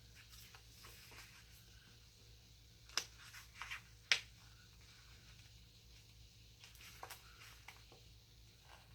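Faint handling of paper stickers and planner sheets on a desk: soft rustles with a few short sharp clicks, the loudest two about three and four seconds in.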